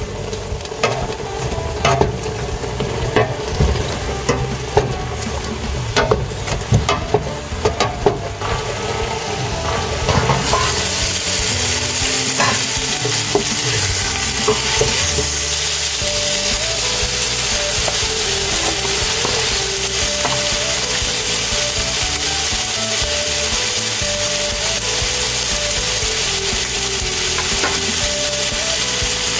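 Pork pieces searing in a stainless steel stockpot and stirred with a wooden spoon: for the first ten seconds or so the spoon knocks and scrapes against the pot, then a steady loud sizzle takes over.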